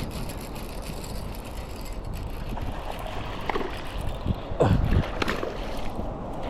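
Water sloshing and splashing over a steady low rumble of wind and water, with a few sudden splashes, the loudest about five seconds in.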